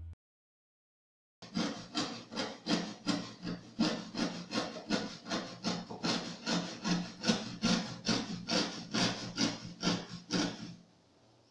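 Hand saw cutting wood in quick, even back-and-forth strokes, about three a second, starting about a second and a half in and stopping shortly before the end.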